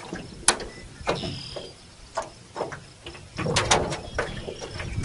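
Irregular clicks and knocks of a trotline being pulled hand over hand along the side of a small metal rowboat, the line and the boat's hull and fittings knocking and rubbing; the sharpest knock comes about half a second in, with a rougher scrape around three and a half seconds.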